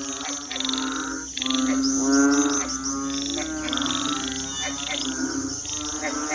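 Frogs and toads calling in chorus: overlapping low calls about once a second, over a steady high trill of crickets.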